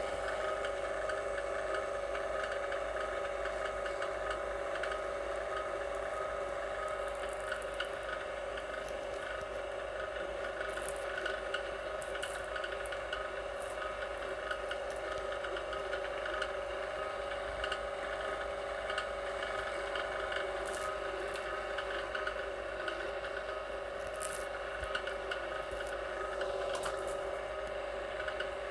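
Electric wire-stripping machine running with a steady motor whine as insulated copper wire is fed through it, with a few short, sharp ticks scattered throughout.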